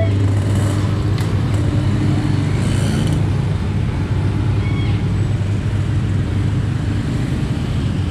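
Motorcycle engines running and pulling away across a level crossing over a steady low hum. The crossing alarm's tone cuts off right at the start.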